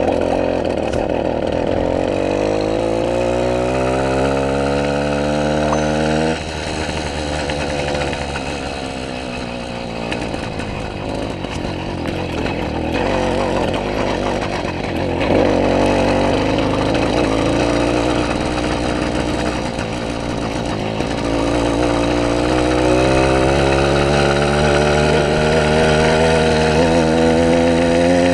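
Motorized bicycle's small engine running strong, its pitch climbing steadily for about six seconds, then dropping suddenly and climbing again over the last several seconds.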